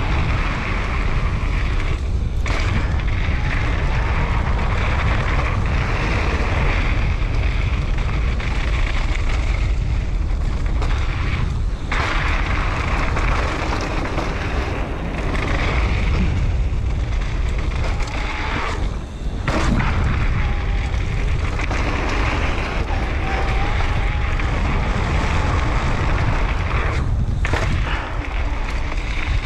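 Mountain bike riding fast down a dirt singletrack: tyres rolling and crunching over loose dirt and gravel while wind buffets the microphone, a dense steady rumble broken by a few brief lulls.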